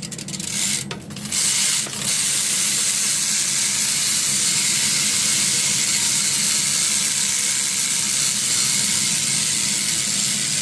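Rear BMX hub (Profile Mini) freewheeling as the wheel spins: its pawls ratchet so fast they make a loud, steady buzz. A few separate clicks come first as the wheel is set spinning, and the buzz settles in about two seconds in.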